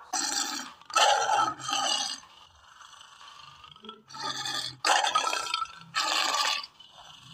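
A series of short, noisy sound effects, about six bursts of around half a second each with quiet gaps between.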